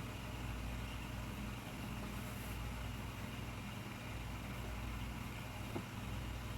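A steady low hum with no words, as of a fan or appliance motor, with a faint tick near the end.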